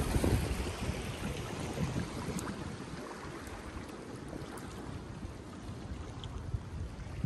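Seashore ambience: wind buffeting the microphone over small waves washing against rocks, a little louder in the first second or two.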